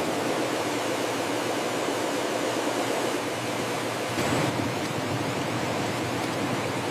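Steady, even rushing noise with no distinct knocks, tones or rhythm.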